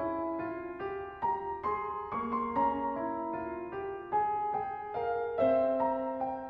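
Slow, gentle instrumental piano music: single notes and soft chords struck about two or three times a second, each left to ring and fade.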